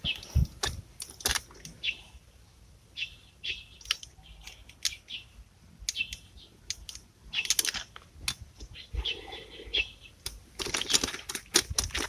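Brake caliper and its bracket being handled and slid on each other, giving a run of light metallic clicks and clatter.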